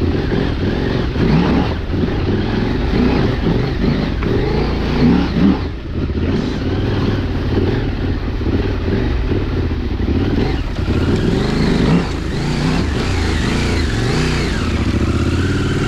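KTM 890's parallel-twin engine revving up and down as the motorcycle is ridden up a rocky track, with a brief throttle-off dip about six seconds in.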